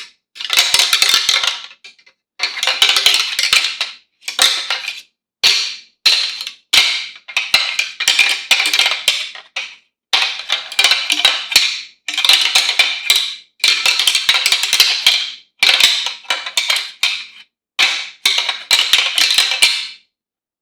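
Whitetail buck antlers clashing and rattling together in about a dozen bursts of rapid clacking, each one to three seconds long, with short silent gaps between them. This is the sound of bucks fighting, used as a rattling call to draw in deer.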